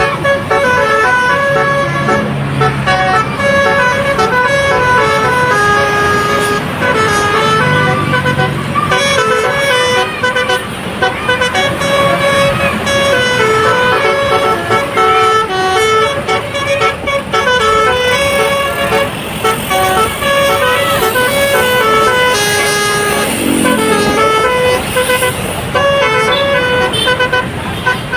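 Bus telolet horn: a multi-tone musical air horn playing runs of short notes that step between a few pitches, repeated again and again.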